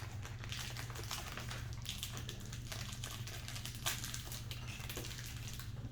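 Plastic wrapper of a Corny Big cereal bar crinkling as it is opened, a string of small irregular crackles with one sharper snap about four seconds in.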